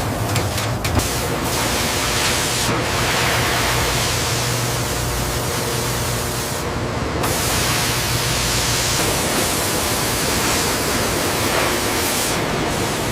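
Steady, loud hissing noise from factory machinery, with a low hum underneath that stops about nine seconds in.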